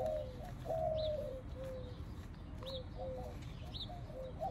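A dove cooing: a longer coo followed by a run of shorter, lower coos. A small bird gives a short high chirp every second or so.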